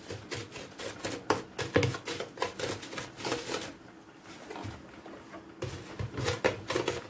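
Coarse rock salt crunching and scratching as a hand spreads and presses it over the bottom of a plastic container: a quick run of small crackles that thins out about halfway through, with a few more near the end.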